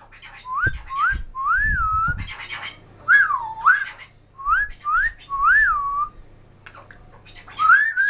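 African grey parrot whistling a string of short whistles, some sliding up and some rising then falling, with a pause of about a second and a half near the end. A few low thumps come in the first two seconds.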